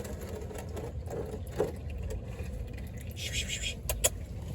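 Wind rumbling on the microphone, with a few sharp clicks and a short hiss about three seconds in.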